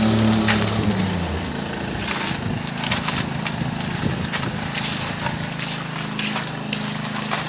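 A concrete pump's diesel engine drops from high revs to a lower, steady running speed over the first second or so. Irregular knocks and clicks sound on top of it.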